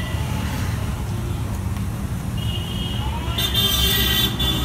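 Steady low rumble of busy street traffic. A high steady tone comes in about halfway through and is loudest shortly before the end.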